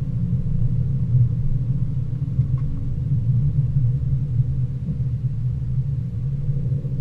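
Steady low rumble of a Mercedes ML350 4matic SUV being driven, its V6 engine and tyre noise heard from inside the cabin.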